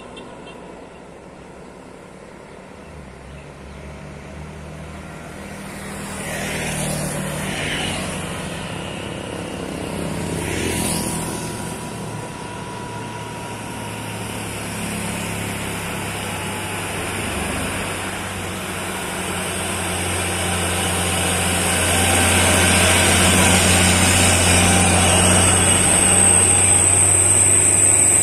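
Heavy diesel cargo trucks labouring up a steep grade, their low engine note building steadily and loudest near the end as a truck passes close and pulls away. Two motorcycles go past about six and eleven seconds in.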